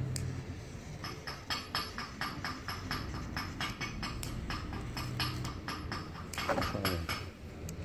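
A handheld lighter being struck over and over, a quick run of sharp clicks at about three or four a second, while it is worked to light an oily rag.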